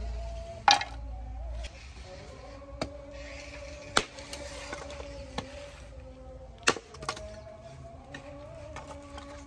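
Axe chopping and splitting pieces of wood on a chopping stump: several sharp chops at uneven intervals, the loudest about a second in, around four seconds, and near seven seconds, with lighter strikes between.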